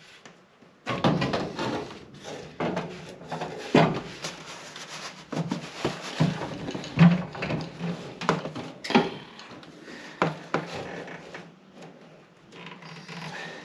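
A cardboard-wrapped car radiator being worked down into a tight engine bay: irregular scraping, rubbing and knocking of cardboard and metal against the grille shell and surrounding sheet metal as it is eased into place.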